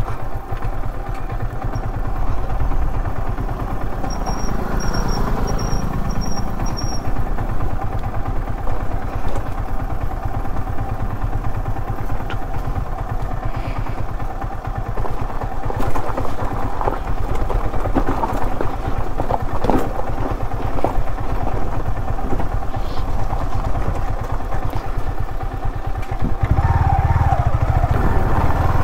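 Yamaha R15 V3 motorcycle's single-cylinder engine running steadily, its low note growing louder near the end.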